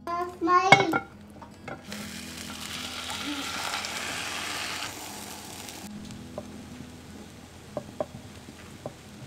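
Omelette sizzling in a non-stick frying pan as the lid comes off: the sizzle is loudest for about three seconds, then settles to a fainter hiss, with a few light clicks near the end. A brief, loud, rising squeal comes within the first second.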